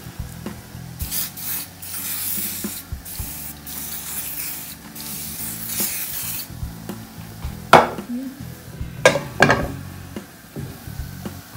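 Olive oil cooking spray hissing in several short bursts onto a frying pan, followed by three sharp knocks a little over halfway through.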